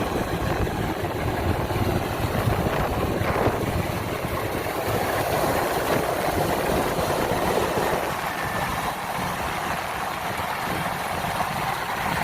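Kubota DC-93 combine harvester running steadily, its engine and threshing machinery making a continuous drone.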